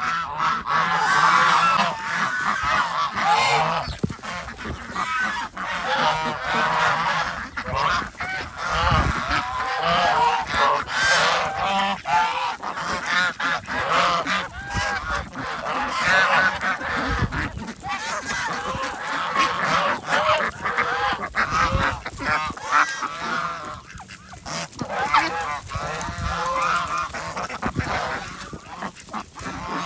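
A flock of domestic geese honking, many overlapping calls going on without a break and easing a little near the end.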